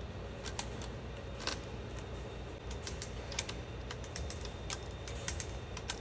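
Scattered light clicks and taps of small metal parts and hand tools being handled, in quick irregular runs, over a low steady hum.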